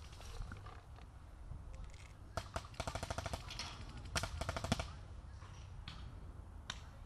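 Paintball markers firing rapid strings of shots: a fast burst lasting about a second, beginning a little over two seconds in, then a shorter burst about four seconds in.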